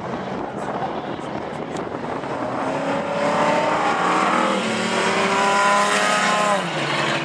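Dirt-track race car driving past: the engine note grows louder and higher over the first few seconds, holds at full throttle, then falls sharply in pitch near the end, over the rumble of tyres on dirt.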